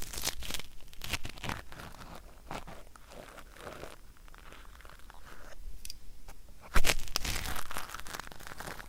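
Ear pick scratching and crackling at stuck, flaky earwax in the right ear. The strokes are quieter in the middle, with a loud run of scratching near the end.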